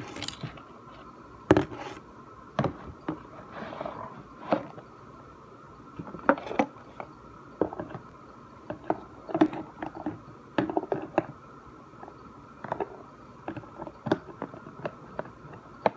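Scattered clicks, knocks and short scrapes of small objects and containers being handled and set down during slime-making, over a faint steady hum.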